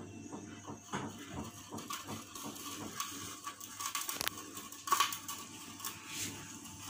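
Steel float scraping and spreading wet thinset cement mix across a ceiling: a run of irregular scrapes with light metallic clinks, and a louder stroke about five seconds in.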